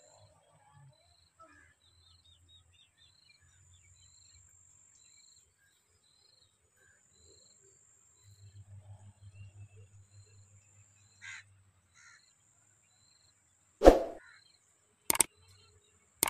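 Faint outdoor ambience with small birds chirping and a crow calling, and a low pulsing rumble for a few seconds in the middle. Near the end come two loud sharp clicks from a subscribe-button sound effect.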